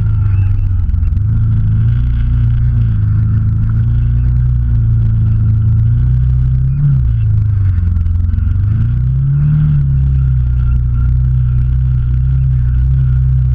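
Off-road vehicle's engine running steadily at low revs while driving along a forest trail, its pitch rising and falling once about nine seconds in.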